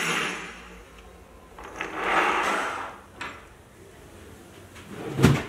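Metal bracelet links settling with a clink on the wooden workbench, then a wooden jeweller's bench drawer sliding with a scraping rush about two seconds in. A short click follows, and there is a heavy knock near the end.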